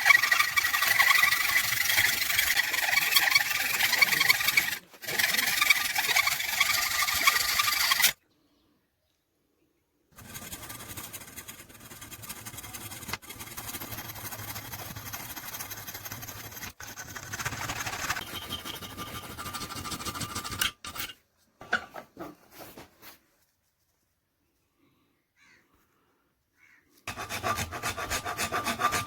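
Abrasive rubbing and rasping of hand shaping work on the razor, in several edited stretches that cut off abruptly into silence. It is loud and dense at first, quieter in the middle, and loud again near the end.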